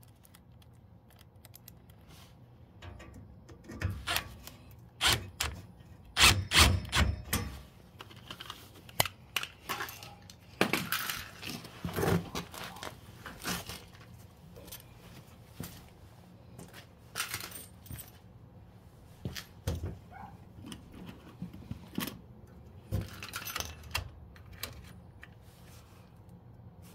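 Metal hand tools and small parts clinking, knocking and rustling as they are handled, in irregular bursts, with the loudest knocks about six to seven seconds in.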